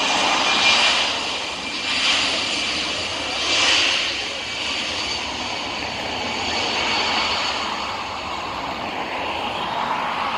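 Airbus A319 airliner's jet engines running on the landing rollout: a steady rushing roar with a faint high whine, swelling louder three times in the first four seconds, then settling as the aircraft slows.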